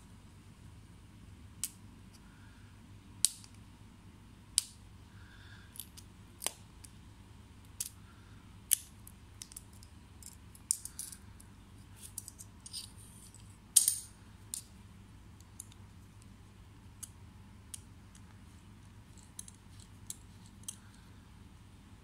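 Sharp, irregular clicks and taps of metal hex keys against a LOOK Keo Blade Carbon pedal's body as it is handled and worked on, with a quicker cluster of clicks and scrapes around the middle and the loudest click a little past halfway.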